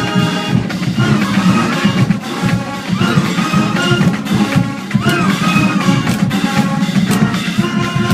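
Marching band playing: brass melody with pitch slides over a steady drumline and bass drum.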